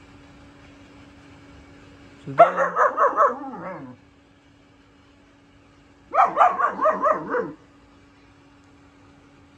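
Four-month-old German shepherd puppy barking in two quick runs of six or seven barks each, the first about two seconds in and the second about six seconds in.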